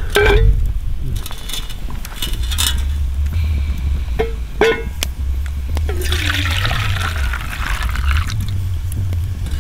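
Tea poured from a pot into a cup: a steady stream of liquid for about two and a half seconds past the middle, with a few short knocks and clinks of the pot and cup before it.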